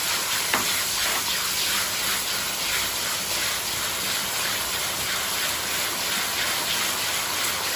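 Ketchup-based sweet-and-sour sauce sizzling steadily in a hot steel wok as it is stirred with a ladle, with a faint click about half a second in.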